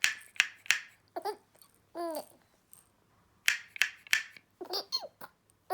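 Baby laughing in two bouts: sharp breathy bursts, then short squealing laughs that fall in pitch, with a pause of about a second between the bouts.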